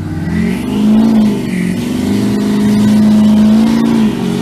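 Car engine revved hard twice, the second time held at high revs for a couple of seconds before dropping off near the end, as the car does a burnout.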